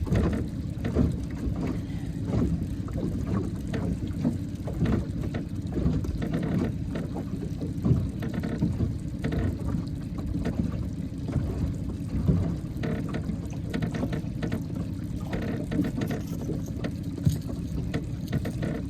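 Water lapping and sloshing against a small boat, an irregular low rumble.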